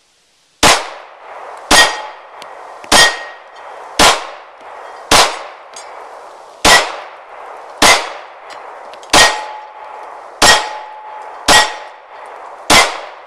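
Gen 3 Glock 19 9mm pistol fired eleven times at a slow, even pace, a little over a second between shots. Each shot is followed by the ringing clang of a metal plate target being hit.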